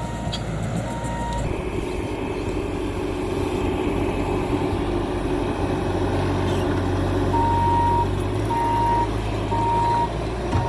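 Compact track loader's diesel engine running, picking up about a second and a half in, with a backup alarm beeping evenly, twice near the start and four times in the second half as the machine reverses.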